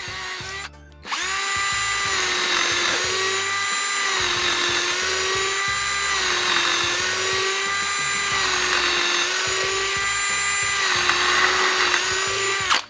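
Bauer 20V cordless drill motor whining at full speed while drilling holes in wood. It stops briefly about a second in, then runs for about eleven seconds, its pitch sagging slightly every couple of seconds under load, and stops near the end.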